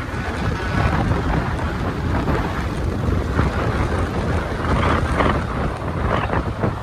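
Loud, steady rumble and rush of a heavy bus's engine and tyres, with wind buffeting the microphone; no horn sounds.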